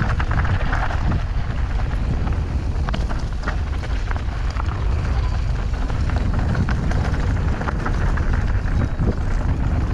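Mountain bike descending fast on a dirt and gravel trail: wind buffeting the camera microphone, with tyre noise on the loose surface and scattered clicks and rattles from the bike.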